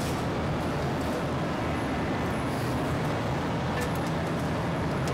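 Steady drone of running air blowers, with a constant low hum under it and a few faint clicks.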